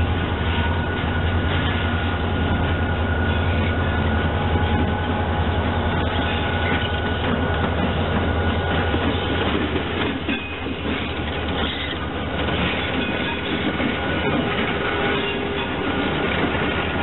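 Two EMD SD40-2-type diesel locomotives (one an SD40-2W) running past at low speed, their 16-cylinder EMD 645 engines giving a steady deep rumble. The engine sound dips briefly about ten seconds in as the lead unit goes by and the second comes up.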